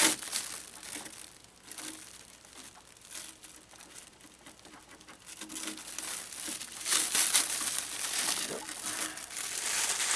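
Cellophane wrap crinkling and crackling in irregular bursts as it is pulled and crumpled off a new RC car body, louder again in the second half.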